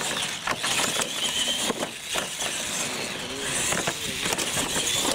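Two radio-controlled monster trucks racing flat out on concrete: the electric motors and gearboxes whine, rising and falling, over tyre noise, with several sharp knocks as the trucks hit the ramps and land the jumps.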